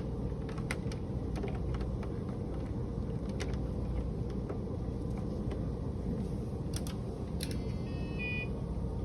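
Scattered sharp clicks of buttons being pressed and test leads being handled on bench electronics equipment, followed near the end by a quick series of short electronic beeps from an instrument's keypad. A steady hum of room and equipment noise runs underneath.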